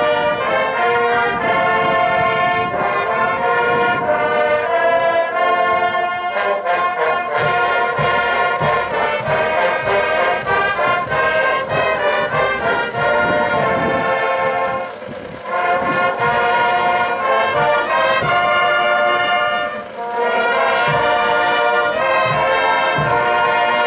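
High school marching band playing the national anthem: brass carrying the melody in long held notes, with drum and cymbal strokes, and short breaks between phrases about 15 and 20 seconds in.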